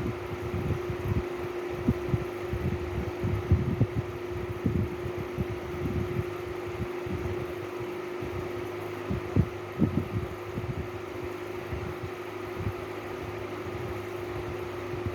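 Steady machine hum, with many short, irregular low thumps over it.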